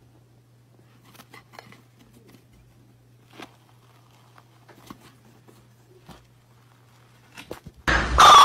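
Faint crackling and soft tearing as fingers pull apart a soft brown cake-like loaf, over a low steady hum. Loud music starts suddenly near the end.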